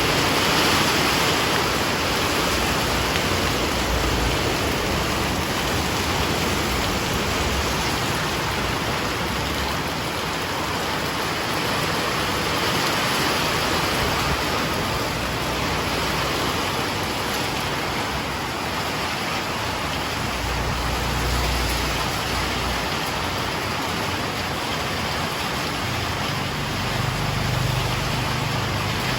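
Heavy rain falling steadily, a dense even hiss. A low rumble swells twice in the second half.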